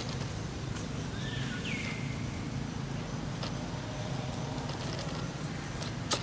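Outdoor ambience with a steady low background rumble and a bird's whistled call that swoops down and levels off about a second and a half in. A couple of sharp clicks come near the end.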